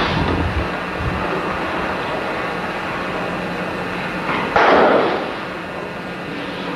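Steady hiss and hum from an old video recording's soundtrack, with a short, louder rush of noise about four and a half seconds in.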